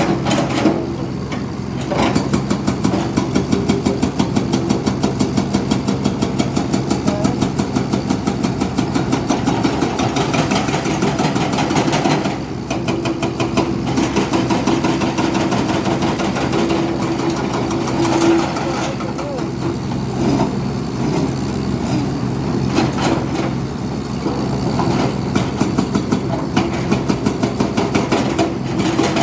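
Backhoe loader's diesel engine running steadily, with a rapid, regular pulsing beat. The level drops briefly about twelve seconds in, then picks up again.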